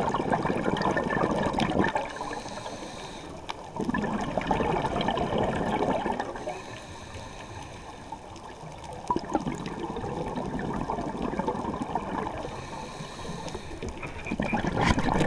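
Scuba regulator exhaust bubbles underwater: the exhaled air gurgles out in bursts of two to three seconds, about every five seconds, with quieter stretches between breaths.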